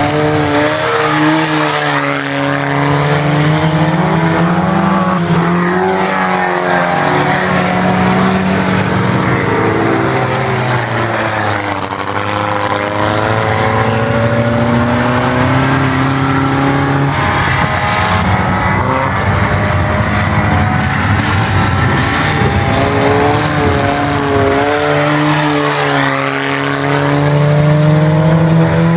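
Several IMCA Sport Compact race cars' four-cylinder engines running hard at race speed. Their pitch rises and falls as the cars accelerate and lift through the turns, and the notes of more than one car overlap.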